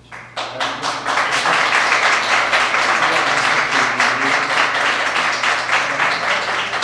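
An audience applauding, starting abruptly just after the start and building within the first second into steady, dense clapping that holds throughout.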